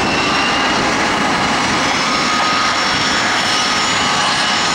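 Bombardier CRJ-200ER's two rear-mounted turbofan jet engines running loud and steady on the takeoff run, a rushing roar with a high whine over it.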